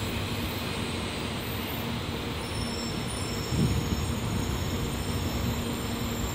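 Tokaido Shinkansen train rolling slowly past the platform as it brakes to a stop: a steady rumble with a low hum.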